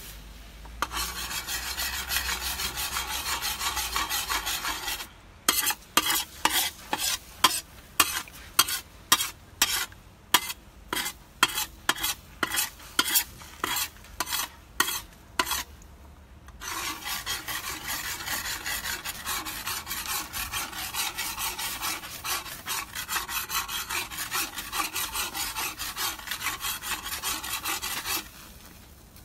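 A cooking utensil stirring and scraping food in a hot pan on a propane cooker, with the food sizzling. From about five seconds in, the continuous scraping gives way to separate strokes about twice a second, and at about sixteen seconds it turns back into steady scraping.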